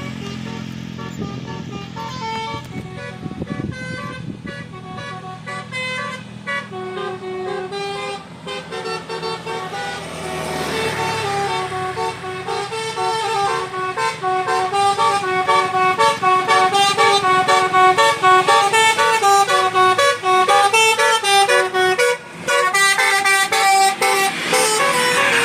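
Bus telolet 'basuri' musical horn playing a tune: a run of horn notes stepping up and down in pitch. It grows louder from about ten seconds in.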